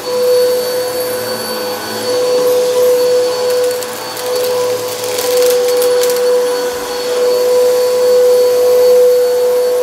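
Bissell PowerForce Helix Turbo upright vacuum cleaner running on carpet with a steady motor whine. A few seconds of crackling come about midway as it sucks up debris.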